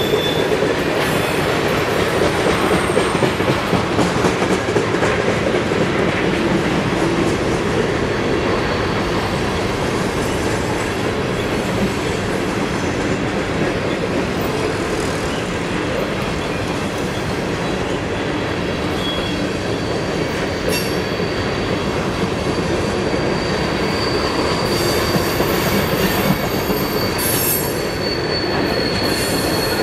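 Cars of a CSX mixed freight train rolling past: a steady, loud rumble of steel wheels on the rails. A faint high wheel squeal sounds near the end.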